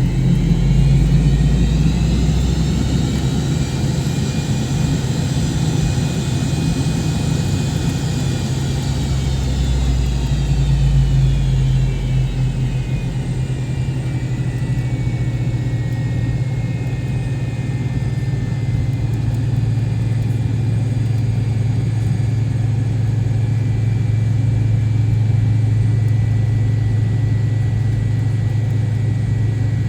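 McDonnell Douglas MD-88 jet engines heard from inside the cabin while the airliner taxis: a steady low rumble under a whine. The whine rises over the first few seconds, holds, then falls away about halfway through and settles lower as thrust is added and then eased back.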